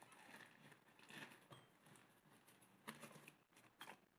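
Faint rustling of a clock's packaging being handled and unwrapped by hand, with a few soft clicks and crinkles.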